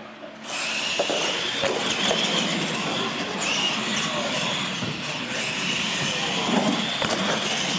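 Radio-controlled monster trucks racing side by side on a concrete floor: their electric motors and gears whine steadily and the tyres rumble. It comes in suddenly about half a second in, with a few light knocks.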